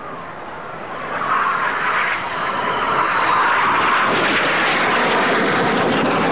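Red Arrows BAE Hawk jet trainer with its Rolls-Royce Adour turbofan making a low, fast pass. A thin high whine comes first, then a rushing jet roar builds about a second in and stays loud.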